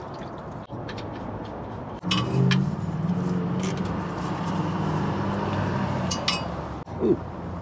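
Used engine oil pouring from a pickup's drain hole into a plastic drain pan, with a few light clinks. From about two seconds in, a vehicle engine runs with a low, steady hum, fading out near the end.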